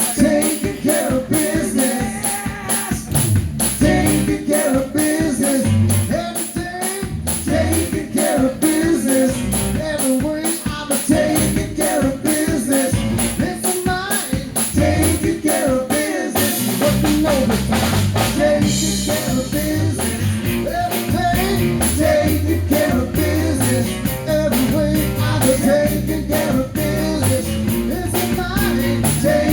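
Live rock band playing: a drum kit with a steady, fast hi-hat, with bass and guitar. A cymbal crash comes about halfway through, and the bass fills in after it.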